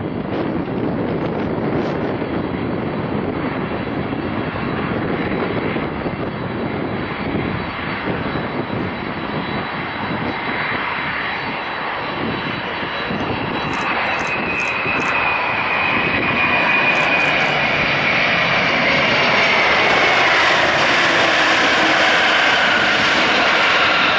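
Boeing 747-400 airliner landing: the steady rush of its four jet engines on approach and through the flare, growing louder over the second half as it touches down and rolls out. A whine falls slowly in pitch as the jet passes by.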